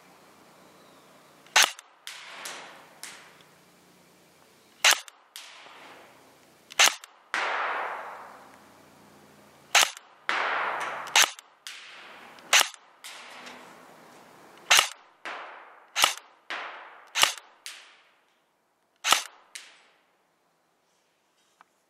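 Airsoft electric gun (a Real Sword Type 56 AK) firing about ten single shots at uneven intervals of one to three seconds. Each sharp crack is followed by a trailing echo that fades over a second or two.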